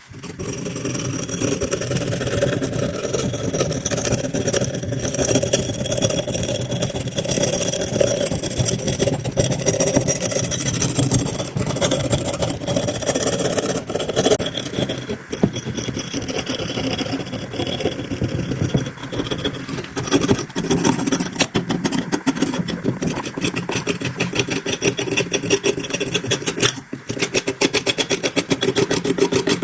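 Electric grinder switched on and running steadily against the rusted steel blade of a butcher's cleaver, its motor hum mixed with rough, uneven scraping as rust is ground off.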